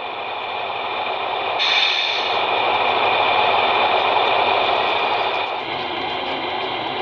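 1/14-scale RC Hino dump truck driving over gravel: the steady high whine of its electric motor and gearbox mixed with rolling noise. It gets louder a couple of seconds in as the truck passes close, then eases back near the end.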